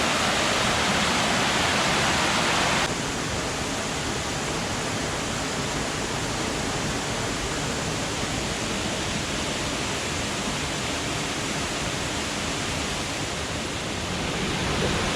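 Steady rush of a waterfall in heavy rainy-season flow. It is louder and brighter for about the first three seconds, then drops suddenly to a lower, duller rush.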